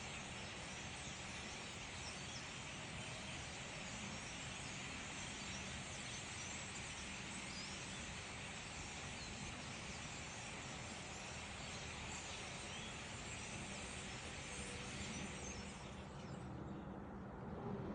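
A large flock of birds gathering before migration, calling all at once in a dense, continuous chatter. The chatter drops away about sixteen seconds in, and a low rumble like a passing vehicle swells near the end.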